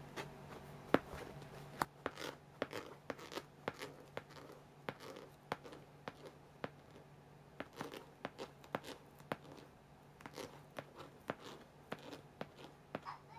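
An American Shorthair cat's claws scratching and catching on a mattress's fabric cover as it paws at it: irregular sharp scratchy clicks, a few a second, over a faint steady hum.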